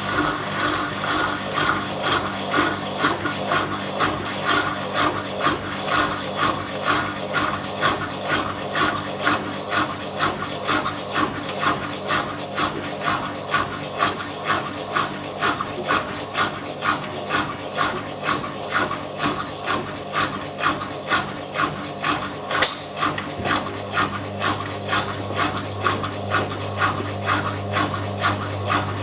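2001 Simpson Esprit 550 washer in its spin, its suspension rods squeaking in a steady rhythm of about two squeaks a second over a low motor hum: a noisy spin from squeaky suspension rods. The hum grows louder about three-quarters of the way in.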